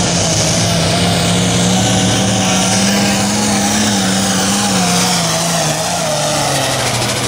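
Case IH 7210 Magnum tractor's diesel engine running flat out while pulling a weight-transfer sled. The engine note holds steady, then sags lower in the last couple of seconds as the engine bogs down under the sled's growing load.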